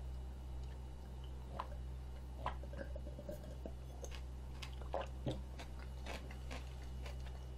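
A person drinking water from a glass close to the microphone: quiet swallows and small wet mouth clicks, with a couple of sharper light knocks about five seconds in.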